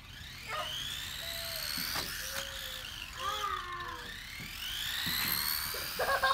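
Electric drive motor of a nitroRC MicroX 1/24 scale RC monster truck whining as it is driven, the pitch rising and falling several times with the throttle.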